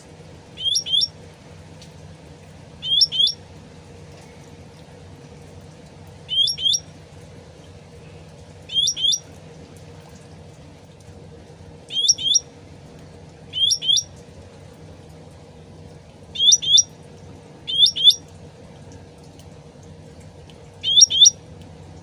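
Cucak ranting (cucak rante) bird repeating a short, high double-noted call about every two seconds, nine calls in all, the later ones loudest, over a steady low background noise.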